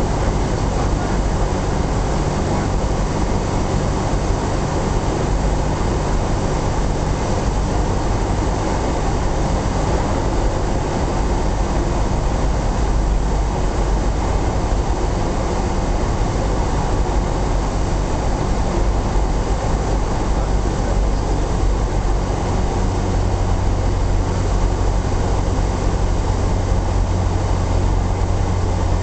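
Cessna 172SP's four-cylinder Lycoming engine and propeller running steadily during the landing approach, heard inside the cabin with air rushing past. A low hum in the engine note grows stronger about three quarters of the way through.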